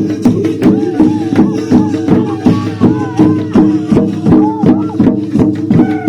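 Square-dance music played loudly over a loudspeaker: a steady, even beat with a wavering melody line over it.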